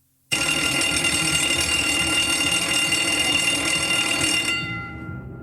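An electric bell rings steadily, starting abruptly and holding for about four seconds before it cuts off and dies away.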